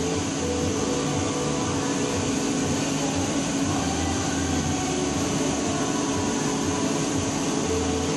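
CNC machine running steadily while a solid-carbide cutter machines 410 stainless steel: a constant machine hum with steady tones over an even hiss.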